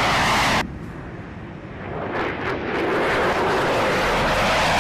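F-16 fighter jet engine at takeoff thrust: a loud jet rush that cuts off suddenly just over half a second in, then builds up again over the next few seconds as another F-16 climbs out after takeoff.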